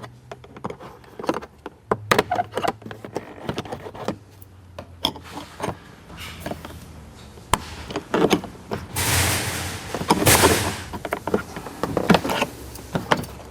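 Plastic interior trim panels of a C7 Corvette being pried loose and handled: an irregular run of clicks, knocks and taps, with two longer scraping rustles about nine and ten seconds in.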